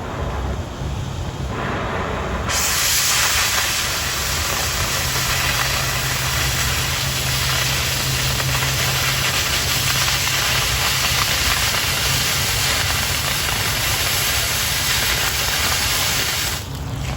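Oxy-fuel cutting torch hissing on 1/4 inch steel plate. About two and a half seconds in the hiss turns much louder and brighter as the cutting oxygen stream comes on and the cut runs, then it cuts off sharply near the end.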